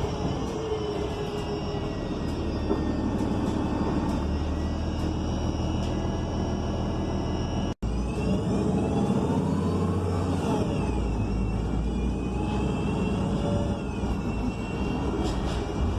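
Inside a 2021 ENC Axess BRT bus under way: its Cummins Westport L9N natural-gas engine and Voith D864.6 automatic transmission running with a steady rumble, and a whine that rises and falls in pitch as the bus speeds up and slows. The sound cuts out for an instant about eight seconds in.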